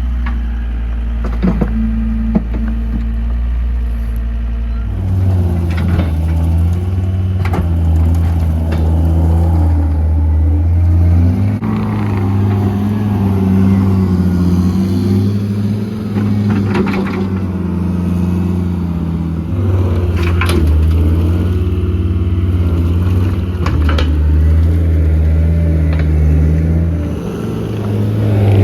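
Skid steer engine running under changing load, its pitch stepping up and down as the machine works, with scattered knocks and clanks.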